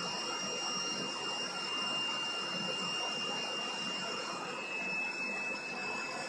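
A 10 HP electric-motor-driven, oil-lubricated rotary screw air compressor running on load, building pressure: a steady mechanical noise with a thin high whine over it.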